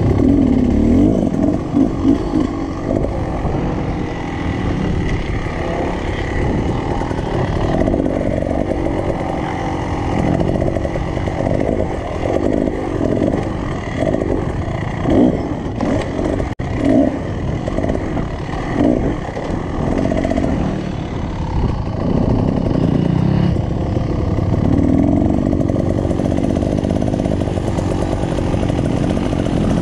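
2019 Beta Xtrainer's two-stroke engine running under way on a dirt ride. In the middle stretch the revs rise and fall over and over as the throttle is worked.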